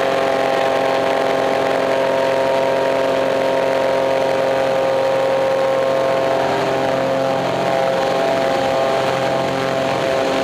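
Sportcopter II gyroplane's engine and pusher propeller running steadily as it rolls down the runway, the tone shifting slightly about six seconds in.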